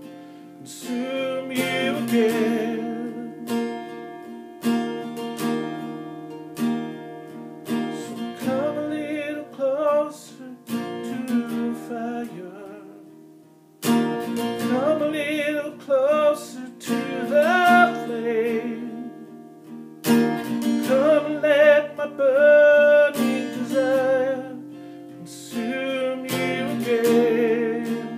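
Acoustic guitar music: chords with a wavering melody line over them. It dies almost away about 13 seconds in, then comes back strongly.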